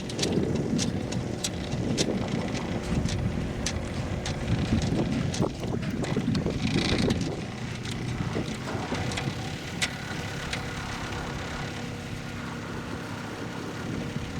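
Sailboat under way: wind buffeting the microphone and water rushing along the hull, in surges, with scattered sharp ticks.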